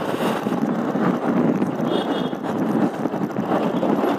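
Wind buffeting the microphone of a moving motorcycle, mixed with its running and road noise as it rolls over a dirt road.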